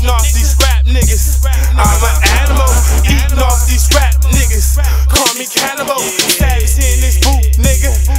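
Hip hop track: a heavy bass line under a vocal, with the bass cutting out for about a second just past the middle.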